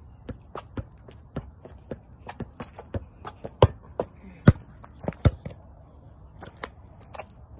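A soccer ball being juggled: irregular thuds of the ball off feet and knees, mixed with quick sneaker steps and scuffs on concrete. Three harder thuds come in the middle.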